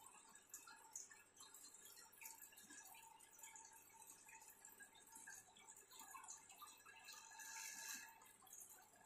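Near silence with faint water trickling and dripping.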